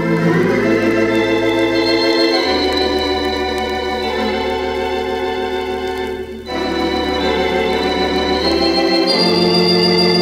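Wurlitzer theatre pipe organ (three manuals, fourteen ranks) playing slow sustained chords over a held pedal bass. The chord changes about two and a half, six and a half and nine seconds in, with a brief break just before the second change.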